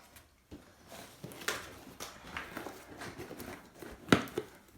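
Handling noise as a boxed subwoofer is picked up and set down: scattered scrapes and light knocks of cardboard, with one sharper knock about four seconds in.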